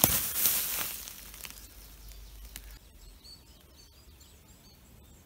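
Rustling of tall grass brushing against a walker, loudest in the first second and fading, followed by faint, high bird chirps.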